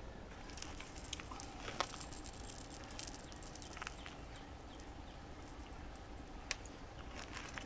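Faint, steady wind rumble on a wind-muffed microphone, with scattered small clicks and rustles of fishing tackle being handled and a rod being cast; one sharp click stands out about six and a half seconds in.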